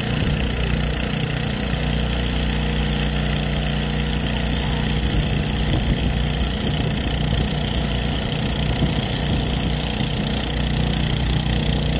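Steady droning hum of an agricultural spraying drone's rotors as it flies low over the rice, spraying pesticide.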